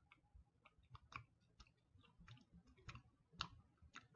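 Faint, irregular wet clicks of a person chewing a tough, rubbery gummy candy.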